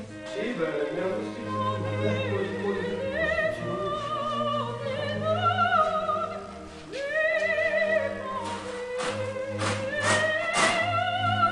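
Operatic singing with orchestral accompaniment: a voice holding long notes with wide vibrato over a steady low accompaniment. In the last few seconds a run of sharp clicks or knocks sounds along with it.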